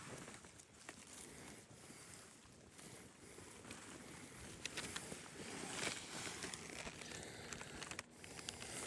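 Rustling and crackling in forest undergrowth, with scattered small clicks and snaps of twigs or leaves, loudest about two thirds of the way in.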